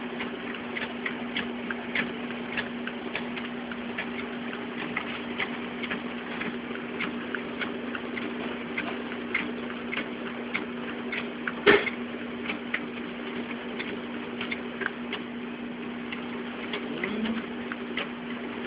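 Fujitsu fi-6800 document scanner running a batch: a steady motor hum under a rapid train of clicks, a little under two a second, as sheets feed through. One louder knock comes about twelve seconds in.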